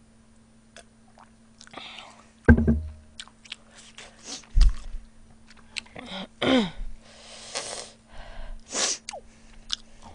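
A person drinking from a glass beer mug, then a heavy thump about two and a half seconds in and a second dull thud soon after, followed by a short falling vocal sound and several sharp breathy exhales.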